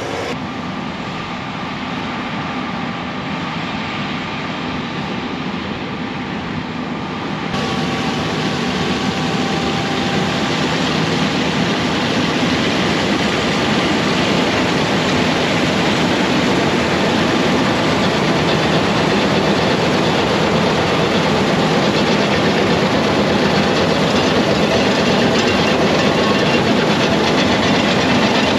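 Combine harvester running: a steady mix of engine and machinery noise with a rattling clatter, which gets louder and fuller about seven seconds in.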